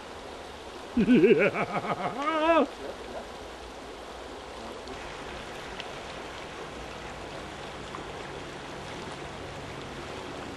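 River water running steadily. About a second in, a person gives an excited wordless whoop, with a wavering pitch, lasting under two seconds.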